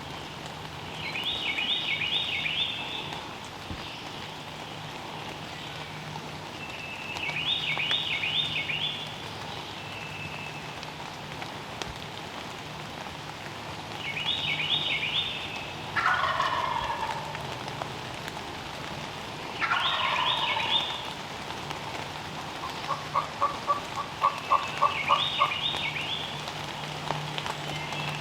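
Wild turkey gobbler gobbling repeatedly, some gobbles louder and closer than others, answered near the end by a quick run of about ten hen-style yelps. Light rain patters underneath.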